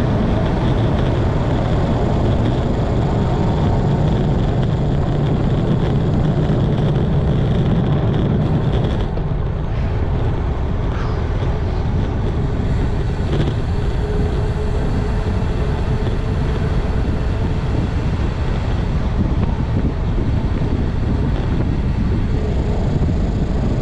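Steady wind rushing over the microphone of a road bike's camera descending at about 30 mph, easing slightly about nine seconds in.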